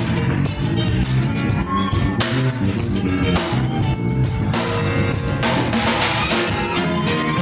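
Live band playing without vocals: drums, electric guitar, bass, keyboard and hand percussion, with a violin.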